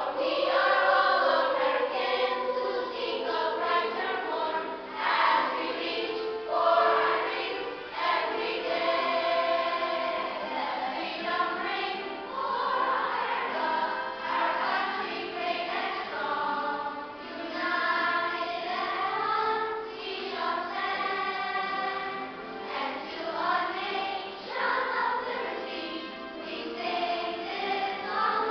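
Children's choir singing together, many young voices on a continuous sung melody.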